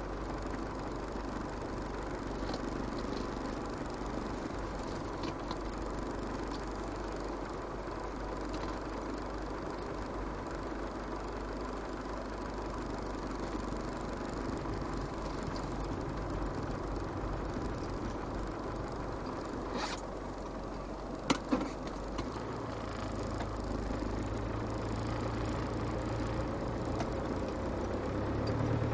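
Land Rover Defender 110's 300Tdi 2.5-litre four-cylinder turbodiesel running steadily, heard inside the cab while the vehicle descends a snowy track. A little past two-thirds of the way through come two sharp knocks, the second louder, and the engine's low hum grows slightly stronger towards the end.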